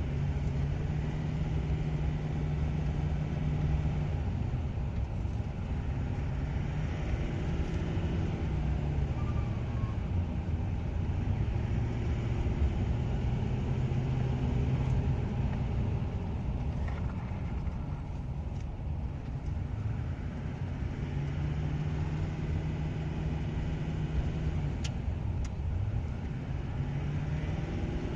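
2016 Duramax LML 6.6-litre V8 turbodiesel pulling at part throttle up a grade, its engine note drifting slowly up and down, with turbocharger whistle and the flutter that comes when the throttle is eased off slightly.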